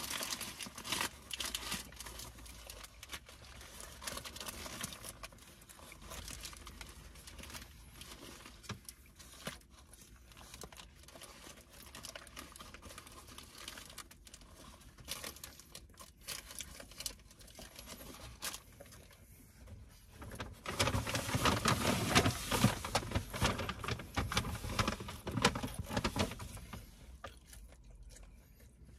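People eating burgers: chewing and the crackle and crinkle of paper burger wrappers, in many small clicks. A louder stretch of crinkling and rustling comes about three-quarters of the way through.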